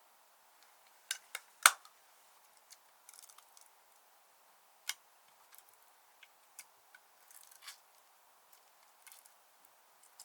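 Slime being worked by hand, giving scattered sticky clicks and small pops, the loudest a little under two seconds in, with short crackly runs later on.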